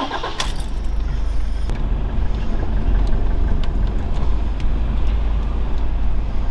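Toyota Hilux on the move, heard from inside the cab: a steady low rumble of engine and tyres, with a couple of light clicks in the first two seconds.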